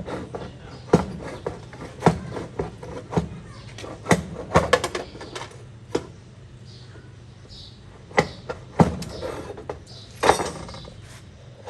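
Irregular sharp knocks and clanks, about a second or two apart, over a steady low hum.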